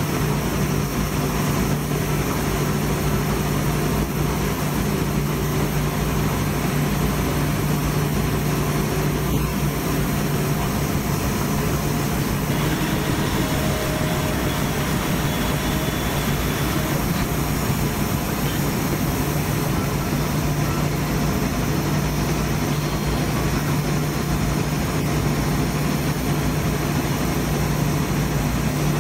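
Laser cutter running a cut: a steady low hum over a constant rush of air from the machine.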